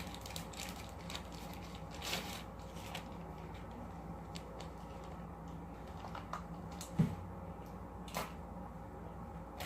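Quiet handling noises of slime-making supplies: scattered light clicks and rustles, with a dull knock about seven seconds in.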